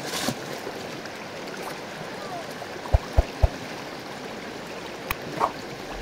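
Shallow river water rushing and splashing steadily around a wet carpet being hauled through it. Three low thumps come in quick succession about three seconds in.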